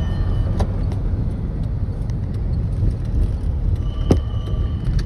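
Low, steady rumble of a vehicle on the move, heard as heavy road and wind noise on a phone microphone, with two sharp clicks: one about half a second in, one about four seconds in.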